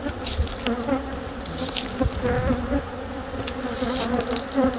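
A large, disturbed honeybee colony buzzing steadily in a wavering hum around its freshly opened compost-bin nest, with scattered brief clicks over it.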